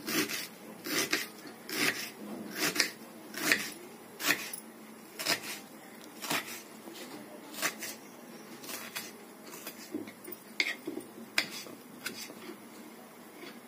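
Knife chopping an onion into small pieces: sharp, irregular cuts about once a second, sometimes two in quick succession, growing fainter in the second half.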